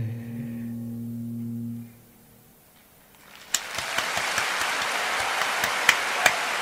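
The song's final held notes end after about two seconds, and after a brief near-quiet gap applause breaks out, with sharp hand claps standing out, from about three and a half seconds in.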